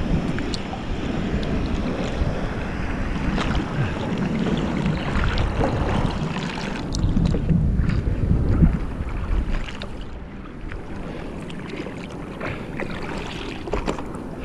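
Seawater sloshing and splashing around a surfer lying on his surfboard, with wind on the microphone and scattered small splashes; it turns quieter about ten seconds in.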